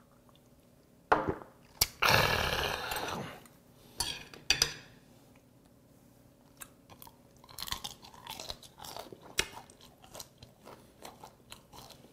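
A shot of soju drunk in one go, the small glass clacking down and a long breathy exhale fading out about two to three seconds in. From about halfway, crisp, rapid crunching as steamed bear shrimp is chewed with its hard shell still on.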